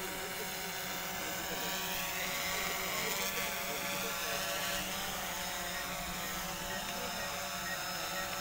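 A steady mechanical drone of a running engine or motor, with a faint, regular high beeping from about six seconds in.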